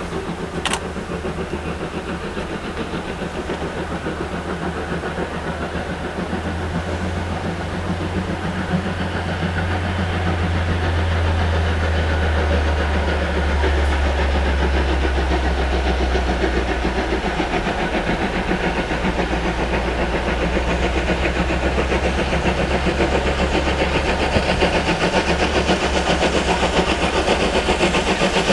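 Steam locomotive working hard: a fast, even beat of exhaust chuffs over a deep rumble, growing louder as the train draws near.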